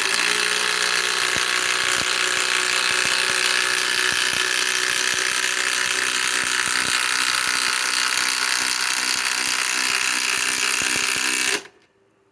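Metabo HPT WH18DDX subcompact cordless impact driver hammering steadily for about eleven and a half seconds while driving a 5-inch LedgerLOK structural screw, then stopping suddenly. The long run of impacting shows the small driver working hard at the limit of its size.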